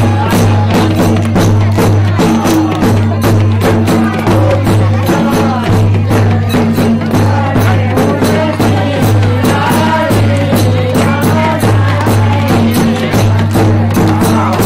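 A group of voices singing a Holi folk song (holi geet) together, over a steady beat of hand percussion.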